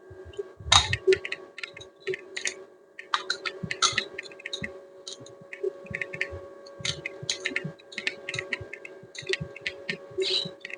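Irregular clicks, taps and light knocks of hard objects being handled, over a steady hum.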